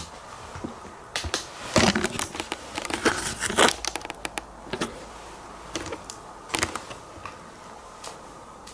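Close handling noise: scattered clicks, rustles and crinkles, thickest in the first four seconds, then a few single clicks, over a faint steady whine.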